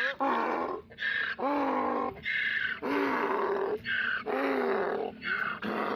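Donkey braying: a long run of hee-haws, alternating high and low notes, about half a second each, that stops just before the end.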